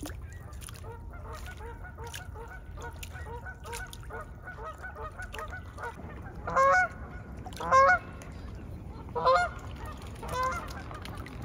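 Canada geese honking: a quick, steady run of faint honks from several birds, then four loud, short, upward-jumping honks from a nearer goose in the second half.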